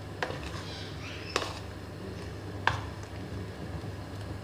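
Metal spoon stirring a thick mango-and-cream mixture in a steel bowl, clinking sharply against the bowl three times.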